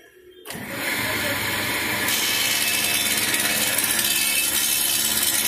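Woodworking power machine starting up about half a second in and then cutting wood in a steady, loud, continuous run.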